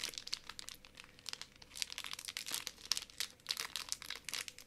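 Crinkly plastic wrapper of a packaged cookie snack being handled and squeezed in the hands, making a rapid, irregular string of sharp crackles.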